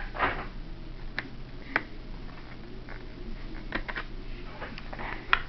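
Small sharp clicks and brief scraping of a screwdriver and small screws being worked out of a laptop's case, about half a dozen clicks spread across the few seconds.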